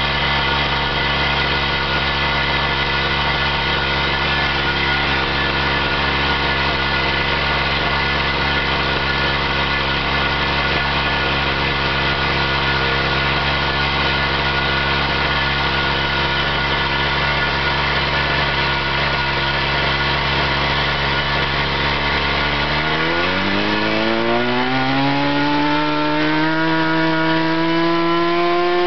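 Small single-cylinder model engine running at a steady speed, then speeding up from about three quarters of the way through, its pitch climbing smoothly.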